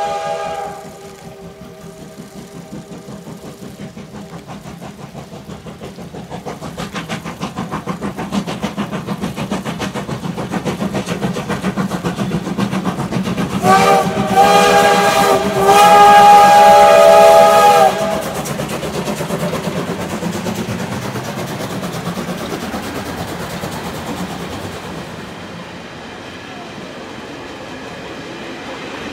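Taiwan Railway steam locomotive CT273 going by: a whistle blast ends just after the start, then the rhythmic clatter of the train grows louder. Two long, loud whistle blasts follow about 14 and 16 seconds in, and the train's clatter then slowly fades.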